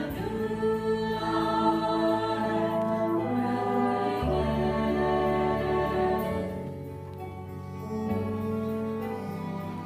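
Ensemble singing of a stage-musical chorus, many voices holding sustained chords, accompanied by a pit orchestra of woodwinds. The music softens for a moment past the middle, then builds again.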